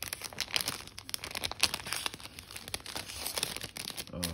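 Plastic card sleeves and their clear wrapping crinkling as they are handled, a dense run of small crackles.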